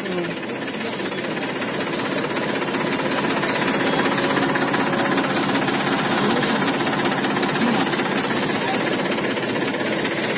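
Concrete pan mixer driven by a tractor's PTO shaft running steadily, its steel paddles churning a dry sand and cement mix in the steel pan over the sound of the tractor engine.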